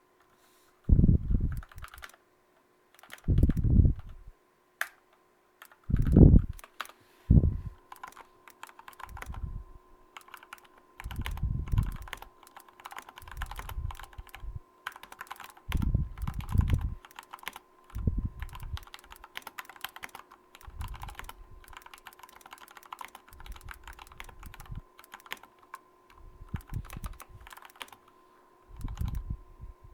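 Mechanical keyboard with lubed, retooled Cherry MX Black linear switches being typed on in bursts, a run of keystroke clacks every second or two, many with a deeper thud beneath.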